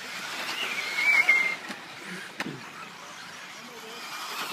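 1/10-scale 4WD electric off-road RC buggies racing past: a hiss of motors and tyres on the dirt track that swells as a car goes by, with a short high motor whine about a second in, a sharp click a little later, and a second smaller swell near the end.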